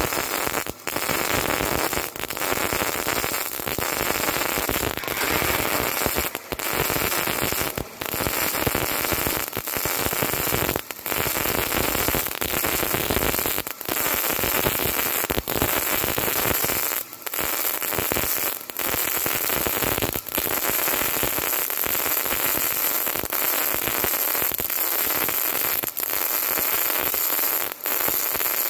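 MIG welding arc on solid wire: a dense, steady crackle of the wire shorting into the weld pool, broken by brief pauses about every second and a half.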